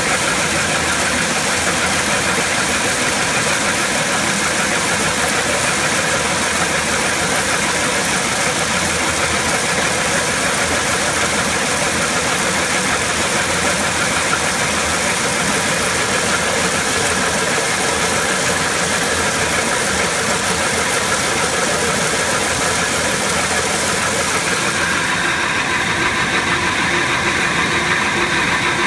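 Yongwon Super Con SP300 cone crusher running under load, with crushed stone pouring and rattling into its feed bowl over a loud, steady machine noise carrying a few steady tones. Near the end the sharper high hiss eases, leaving a steadier drone.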